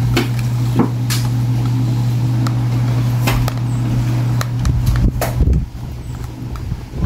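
A fork clicking and scraping against a plastic tub of white chocolate as it is stirred and mashed in a double boiler: a string of sharp, irregular clicks. A steady low hum runs underneath.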